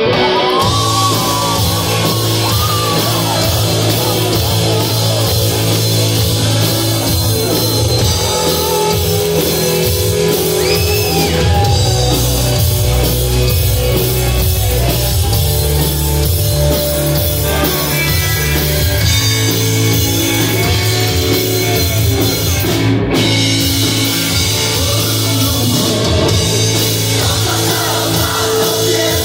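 Live rock band playing: electric guitar, bass guitar and drum kit, with a singer's voice over the band.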